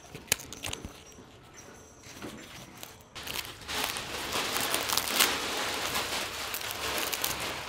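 Thin, fresh lavash bread being torn apart by hand, crackling as it crisps and crumbles like a thin cracker. After a few light clicks, the crackling starts about three seconds in and keeps going.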